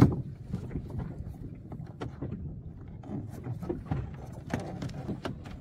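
Wind and water slapping against a small canoe's hull, with scattered knocks and bumps from the boat as the anchor rope is hauled in by hand. The loudest knock comes at the very start.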